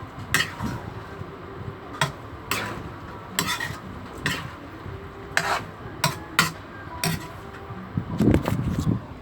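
Kitchen utensil knocking and clinking against a bowl or dish in irregular strokes, roughly one or two a second, with a quicker flurry near the end.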